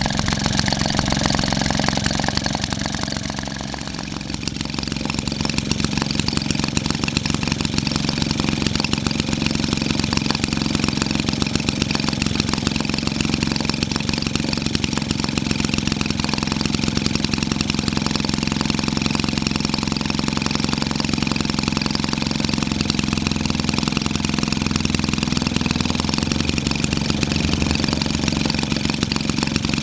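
1946 Maytag model 72D twin-cylinder two-stroke engine running steadily at about 1350 rpm, its exhaust pulses coming fast and even. It is briefly a little quieter about four seconds in.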